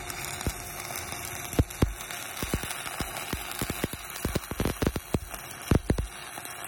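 Stick welding arc from an 8010 pipeliner rod (cellulosic electrode) running a hot pass at about 125 amps: a steady crackling hiss broken by irregular sharp pops.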